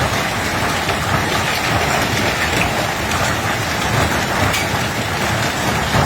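Hailstorm: hail and rain pelting down in a dense, steady patter of small impacts.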